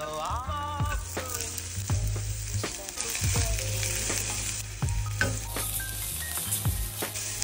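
Sliced red onions sizzling in hot oil in a pan, stirred with a wooden spoon that scrapes and knocks against the pan several times.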